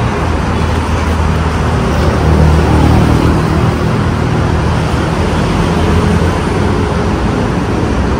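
Steady multi-lane city road traffic: cars and motorbikes running on the road below. The noise grows a little louder about two to three seconds in.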